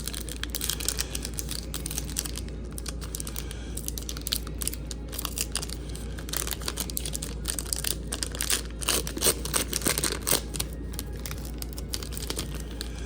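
Foil trading-card pack wrapper being crinkled and torn open, with irregular crackling and rustling of the wrapper and cards handled, over a steady low hum.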